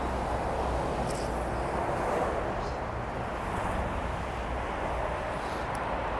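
Steady rush of road traffic from the freeway beside the station platform, an even noise with a low rumble under it.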